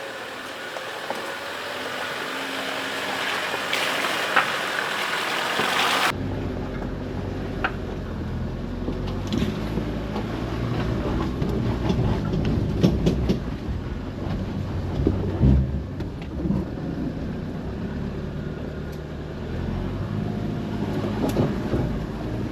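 4WD ute engine running at low speed on a rough, rutted track, with irregular clunks and rattles from the suspension and the tyres going over the ground. For the first six seconds a loud even rushing noise covers it, then it cuts off abruptly.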